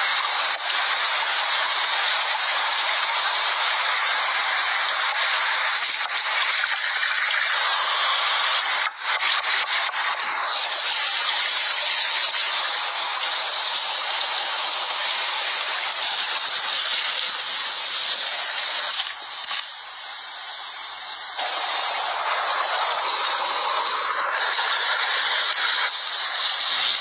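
A steady hiss, with a brief dip about nine seconds in and a quieter stretch around twenty seconds in.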